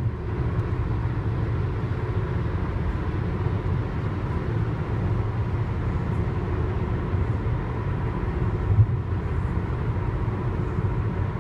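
Steady road and engine noise inside a car's cabin while it cruises at highway speed.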